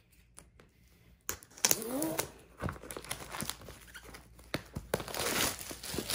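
A diamond painting kit's long cardboard box being opened and handled: irregular rustling and crinkling with sharp clicks and scrapes, starting about a second in, with a short rising tone near two seconds and the busiest rustling near the end.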